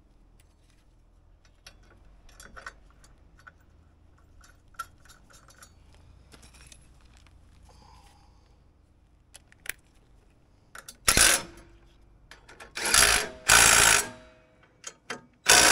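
Light clinks and taps of small tools and bolts, then a cordless impact driver running in four short bursts in the last five seconds, running in the bolts of an excavator engine's belt guard.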